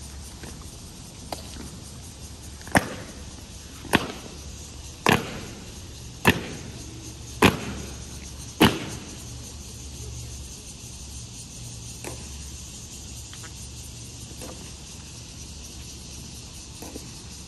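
Honor guards' boots striking the stone steps and paving in unison during a slow ceremonial march: six sharp, ringing strikes about a second apart, then only faint steps.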